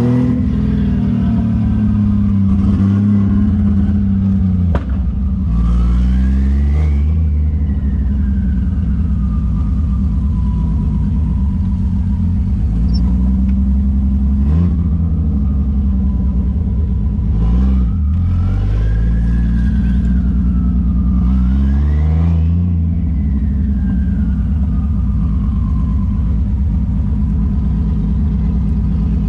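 Toyota 1JZ turbocharged inline-six with a single Precision turbo and open-dump wastegate, pulling through the gears: engine pitch climbs and drops at each shift, and a turbo whistle rises with boost and glides slowly down after each pull. Short rushes of noise come at several of the throttle changes.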